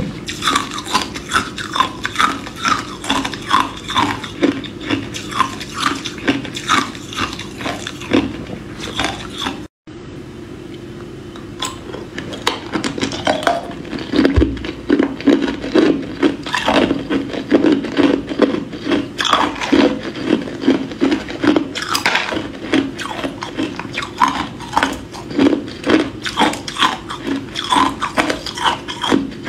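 Hard ice cubes being bitten and crunched in the mouth close to the microphone, a rapid run of sharp crunches at about two or three a second. Near ten seconds in the sound cuts out briefly and stays quieter for a couple of seconds before the crunching starts again.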